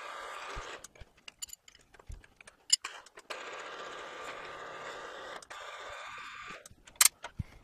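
Mill-drill spindle running while a drill bit is hand-fed into a metal shaft to drill a grub-screw hole, a steady machine hum that drops out for a couple of seconds and fades again near the end. Sharp clicks and clinks of metal chips and the feed are scattered throughout, the loudest about seven seconds in.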